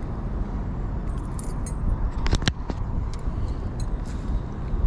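Strong wind buffeting the microphone as a steady low rumble, with scattered light clicks and rattles over it.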